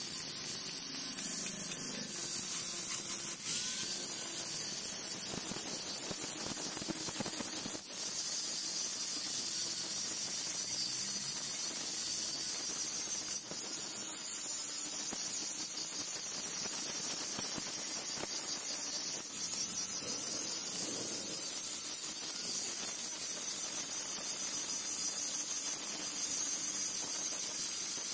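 Handheld angle grinder with an abrasive disc grinding the steel blade of a kukri, a steady high-pitched grinding hiss of disc on steel. The level dips briefly a few times as the disc is lifted and moved along the blade.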